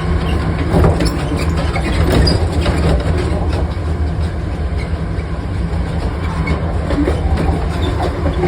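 British Rail Class 43 HST power car's diesel engine working hard under power, a steady drone, with wheels clicking over rail joints.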